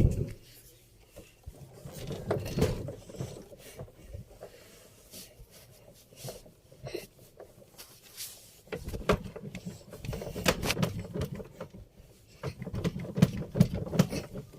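Electrolux washing machine's drive belt and pulley being twisted and turned by hand, rubbing and knocking in irregular bouts with scattered clicks.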